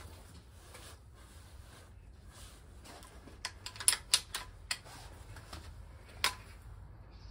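A quick run of sharp clicks, about seven in a second and a half, then one more single click a second and a half later, over a faint steady low hum.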